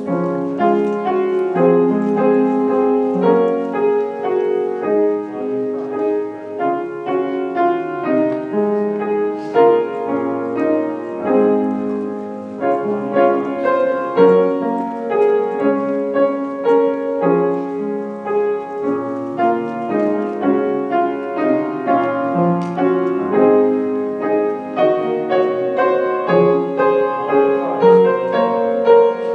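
Instrumental piano music: chords and a melody played without singing, with new notes struck every fraction of a second.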